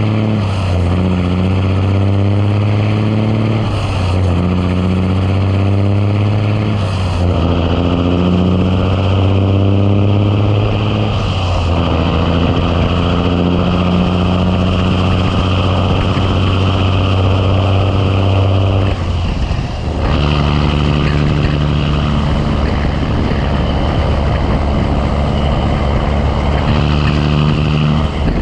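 Big Cam Cummins inline-six diesel in a 1986 Ford LT9000 truck pulling hard up through the gears. Its pitch climbs in each gear and drops back at each shift, about four times in the first twelve seconds. Then it holds a steady pitch, with one brief dip about twenty seconds in.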